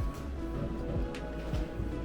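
Music with long held tones over a steady low rumble, broken by a few short soft taps.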